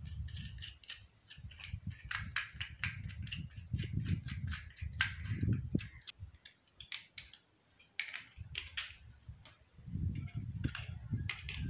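Small irregular metallic clicks and clinks as a bolt, washers and nut are fitted through a metal jar lid by hand and then worked with a multi-tool's pliers.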